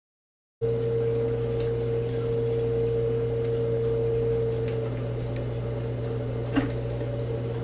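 A steady hum with a higher steady tone over it, cutting in abruptly just after a moment of silence; the higher tone fades about five seconds in, and a single sharp click comes near the end.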